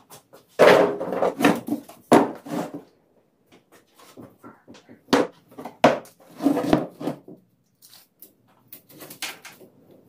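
Dry wooden branches knocking and clattering against each other and on a wooden workbench as they are handled and set down. There is a run of loud knocks shortly after the start and another about five seconds in.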